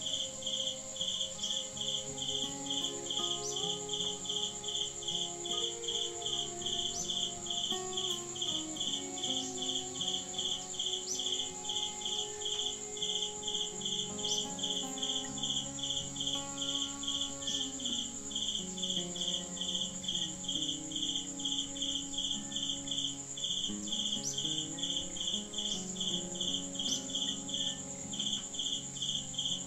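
Insects chirping in a steady pulsing rhythm, about two to three chirps a second, over a continuous high whine.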